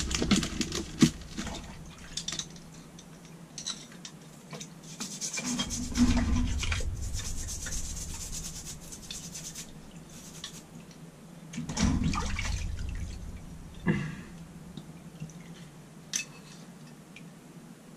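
Carburettor part being scrubbed with a toothbrush over the liquid of an ultrasonic cleaner: irregular brushing strokes with wet splashing and dripping. There are a couple of louder dull bumps about six and twelve seconds in.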